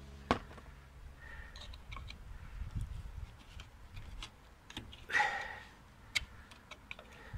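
Scattered light metallic clicks and clinks of hand tools working on a car's rear drum brake shoes, springs and handbrake hardware, with one brief louder burst of noise about five seconds in.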